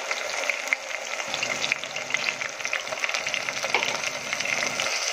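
Onions and whole spices frying in hot oil in a pot, a steady sizzle full of small crackling pops, as a ground spice paste is poured into the oil.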